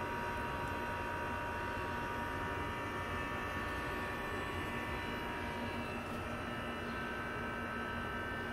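Harrison Alpha 400 CNC lathe running under power: a steady hum with several even, high whining tones.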